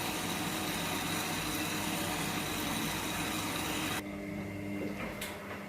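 Whirlpool Freshcare 7 kg front-load washing machine at the start of its cycle: a steady hiss of water running in through the inlet, which cuts off suddenly about four seconds in. A low steady hum and a single click follow.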